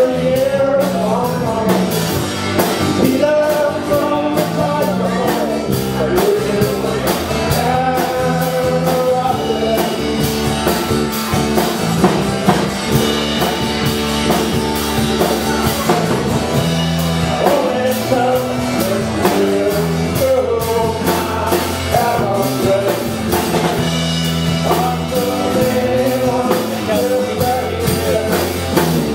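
Live rock band playing: a man singing over acoustic and electric guitars, with a drum kit keeping a steady beat.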